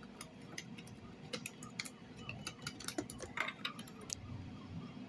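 Faint, irregular clicks and ticks from a handheld phone being handled and moved, over a low steady hum.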